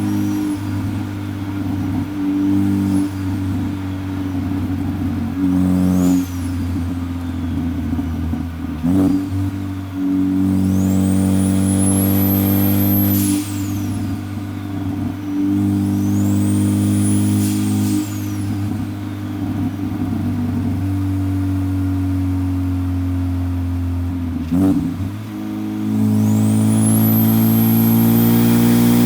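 Turbocharged Ford Focus ST engine running under way, pulling harder several times, each pull with a high turbo whistle that rises and then falls away.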